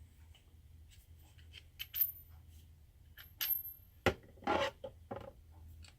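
Socket rail, clips and sockets being handled: scattered light metallic clicks and clinks, a sharp knock about four seconds in, then a brief scrape and another knock.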